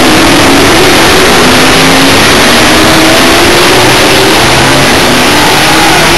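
Several NASCAR stock cars' V8 engines racing past on the circuit, a loud, steady engine noise with pitches sliding up and down as the cars accelerate and pass.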